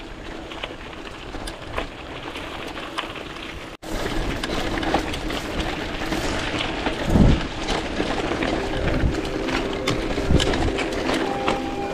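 Mountain bike ridden over a dirt trail, heard from a handlebar camera: a steady rush of wind and tyres on dirt, with scattered clicks and rattles from the bike and a couple of heavier knocks over bumps. About four seconds in the sound drops out for an instant and comes back louder.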